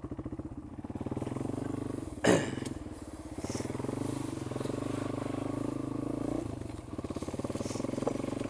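Yamaha XT225's single-cylinder four-stroke engine running at low speed, its note shifting a few times with the throttle. A brief loud noise cuts in about two seconds in.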